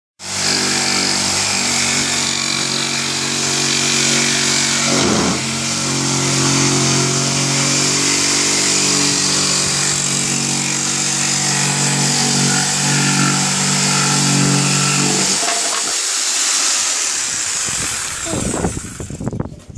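Electric power saw running and cutting wood, a loud, steady buzz with a brief dip about five seconds in. Near the end the low motor hum drops away and the cutting noise tapers off.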